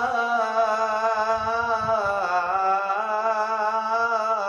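A man's voice chanting a Quranic verse in melodic recitation, drawing out one long held note with a slight waver that dips a little about halfway through.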